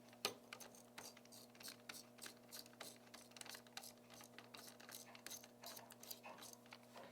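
Faint, irregular small clicks of a star-head screwdriver turning the spring-loaded screws that hold a laptop graphics card's heatsink brace, several a second, over a low steady hum.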